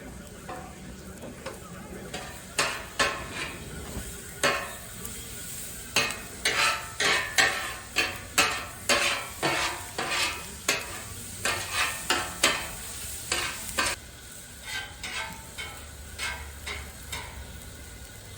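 Onions and jalapeños sizzling in a pan while being stirred, the utensil knocking and scraping against the pan about twice a second. The stirring is busiest for most of the stretch and eases off near the end.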